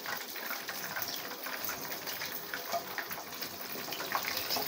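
Chicken wings deep-frying in hot oil: a steady sizzle scattered with small crackles as the golden-brown pieces finish cooking.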